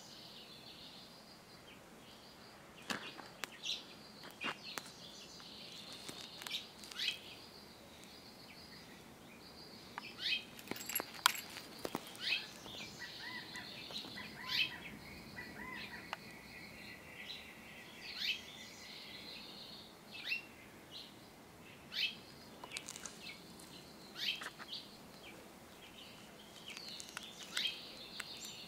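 Small birds chirping in short, scattered calls over faint, steady outdoor background noise.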